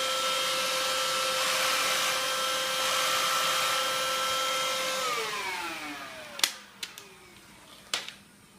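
Deik 22.2V cordless stick vacuum running with a steady high whine and rush of air, then switched off about five seconds in, its motor winding down with a falling pitch. A couple of sharp clicks follow near the end.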